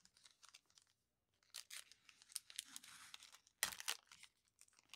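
A foil Panini Prizm football card pack being torn open. The wrapper crinkles faintly at first, crackles from about a second and a half in, and gives one sharp tear at about three and a half seconds.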